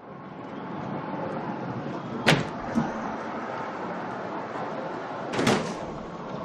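Steady background ambience with two sharp knocks, about two seconds in and about five and a half seconds in, and a fainter knock just after the first.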